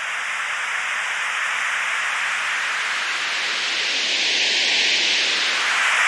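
Electronic white-noise riser sound effect: a hiss that slowly grows louder, its tone shifting as a filter sweeps through it.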